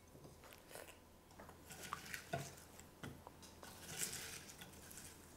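Faint clinks and scrapes of two metal spoons against a glass bowl and a ceramic plate, with soft squishing as sticky chocolate-coated cornflakes are scooped and pushed off onto the plate.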